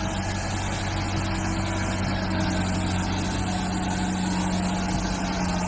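Caterpillar 966F wheel loader's diesel engine running at a steady speed, its pitch holding constant.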